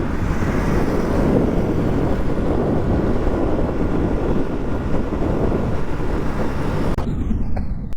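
Steady riding noise from a Bajaj Pulsar NS200 motorcycle at road speed: wind rushing over the microphone, mixed with engine and road noise.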